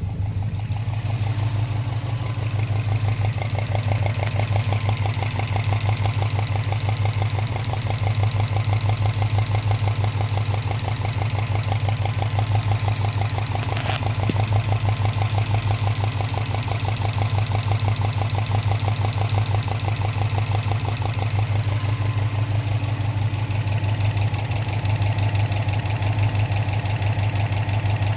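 2003 Subaru Impreza WRX's flat-four engine idling warm with a steady, rhythmic burping or chugging noise, which the owner suspects is piston slap from cylinder 1 or 3. A single brief click about halfway through.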